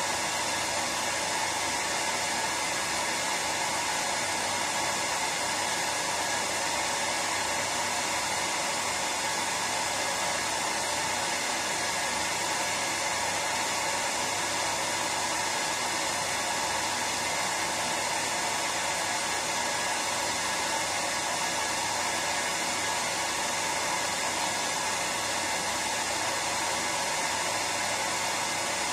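Hair dryer running steadily, a constant even whoosh of fan and airflow with a faint low hum, played as white noise to lull a baby to sleep.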